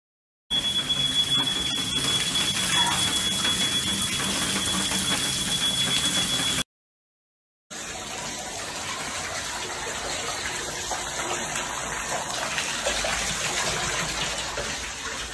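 Water gushing from burst pipes through a broken ceiling, a steady rush. For the first several seconds the rush is louder and carries a steady high-pitched electronic tone. It then cuts off, and after about a second of silence a quieter rush carries on.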